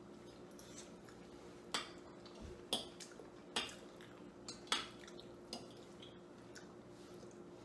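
Metal forks clinking and scraping on dinner plates as two people eat pasta: a handful of short, sharp clinks about a second apart.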